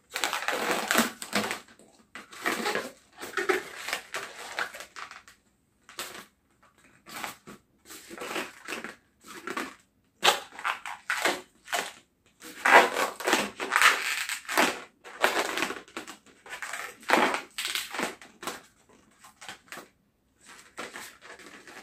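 Latex modelling balloons rubbing and squeaking in the hands as they are twisted and bent into shape, in irregular bursts with short pauses.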